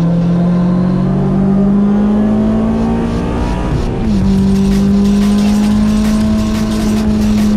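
Honda S2000's four-cylinder engine pulling hard at racing speed. Its pitch climbs steadily for about four seconds, drops sharply, then holds nearly steady.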